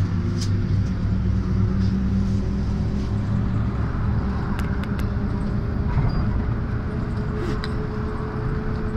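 MAZ-103 city bus driving, heard from inside the passenger cabin: a steady diesel engine drone with road noise and a thin whine that grows a little stronger after about six seconds. A couple of light clicks or rattles come about halfway through.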